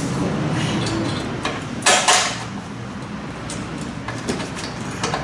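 Metal clinks and knocks from hand work under the motorcycle's engine: two sharp knocks about two seconds in, then a few lighter taps.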